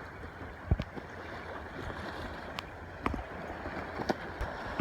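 Steady rushing noise with a few short knocks: a sharp one under a second in, and more near three seconds, four seconds and the end.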